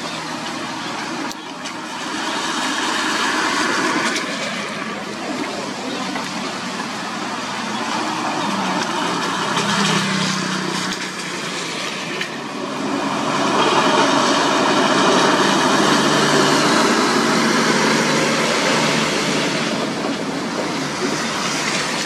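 Road traffic passing on wet asphalt: motorcycles and cars go by with tyres hissing. A heavily loaded cargo truck's engine grows louder and passes close, loudest just past the middle.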